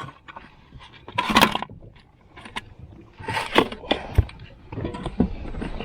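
Irregular scraping, rustling and knocking as a freshly landed crappie thrashes and is handled in the boat, with one dull knock about four seconds in.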